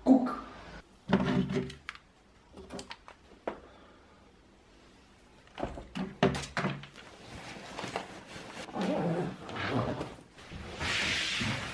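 Short voice sounds in the first two seconds, then knocks and clatter of gear being handled, and near the end a rustling of a backpack being packed.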